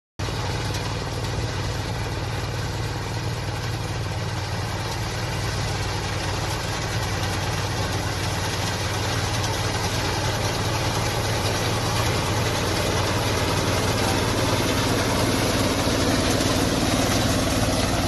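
Small track-type combine harvester running steadily while harvesting rice, its engine and threshing machinery growing gradually louder as it approaches.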